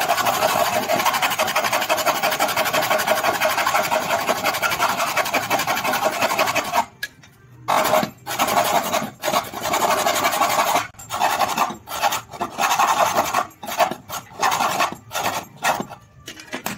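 Hand hacksaw sawing through a thin metal rod: quick, even back-and-forth rasping strokes for about seven seconds, a short pause, then shorter bursts of strokes with brief breaks.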